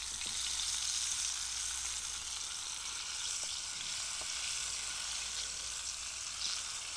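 Deboned frog legs frying in olive oil in a metal skillet over campfire coals: a steady high sizzle. A wooden spatula stirs the pieces in the pan.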